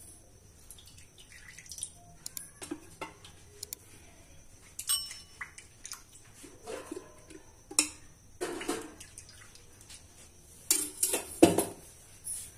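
Scattered clinks and knocks of utensils against a metal kadai holding hot oil. One ringing metallic clink comes about five seconds in, and the loudest knocks come near the end.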